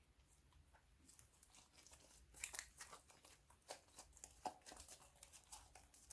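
Crunchy slime squeezed and worked by hand, giving a faint run of irregular crackles and pops that grows busier about a second in, with the loudest crackle a little before the middle.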